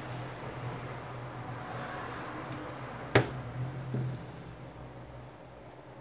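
Small hand tools handled on a silicone repair mat: one sharp click about three seconds in and a few faint ticks, over a steady low hum and hiss that fades out about four seconds in.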